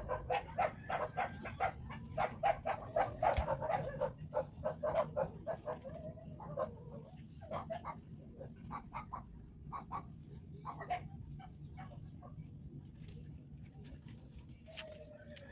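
A dog making short, rapid sounds, about three or four a second, which thin out and fade after about five seconds.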